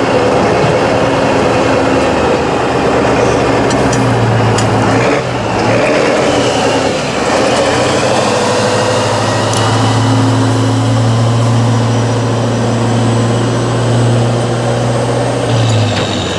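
Tatra 813 8x8 trial truck's diesel engine working under heavy load as the truck climbs a steep sandy slope. The steady engine note eases about five seconds in, then pulls hard and steady again until it drops back near the end.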